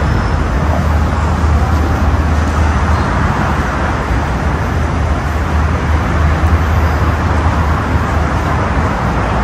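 Steady running noise of a vehicle in motion: a continuous deep rumble with a hiss above it.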